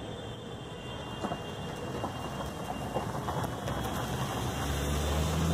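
Distant jet aircraft rumble, a steady noise that grows gradually louder, with a deep low rumble building near the end.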